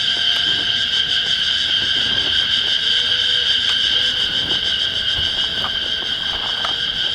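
Cicadas singing: a loud, steady, high-pitched buzz that holds without a break.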